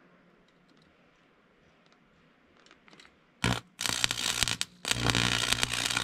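Stick-welding arc crackling in short runs: struck about three and a half seconds in for a brief burst, then two longer runs of crackle about a second each with short breaks between.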